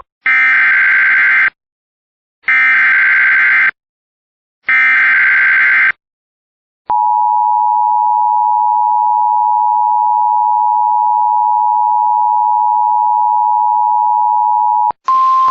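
Emergency Alert System header on a broadcast: three identical bursts of SAME digital data tones, each a little over a second long with about a second's gap between them. The steady two-tone EAS attention signal follows and holds for about eight seconds. It cuts off, and a single steady tone starts just before the end. Together these tones open an emergency alert, here a severe thunderstorm warning.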